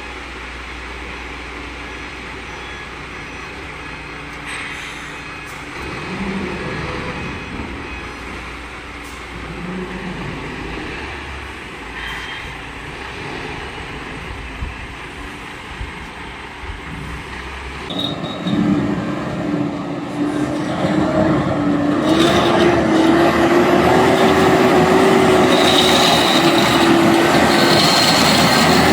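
Heavily loaded truck engine working under load. About two-thirds of the way through, the sound changes and grows louder, and a steady engine drone rises slightly in pitch.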